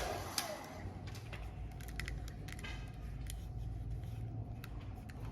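Scattered small plastic clicks and taps of a wireless computer mouse being handled and fitted back together, over a faint low hum.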